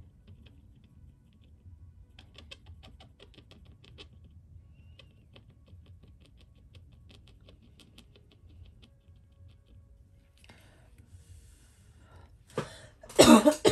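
A Uni-ball Signal gel pen scratching faintly on planner paper in short strokes, then a louder burst of paper rustling and handling near the end.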